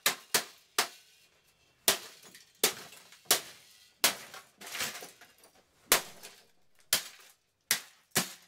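A golf club repeatedly striking the plastic casing and circuit boards of a Rank Arena A0-501 portable TV radio cassette player: about eleven sharp cracks at an uneven pace, with a pause of about a second after the first three. Broken plastic pieces clatter after the hit about four seconds in.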